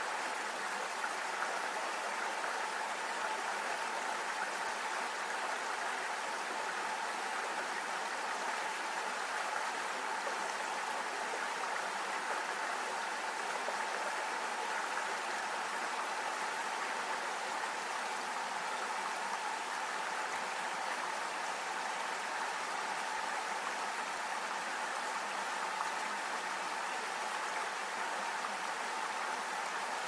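Shallow stream running over stones: a steady, even rush of water.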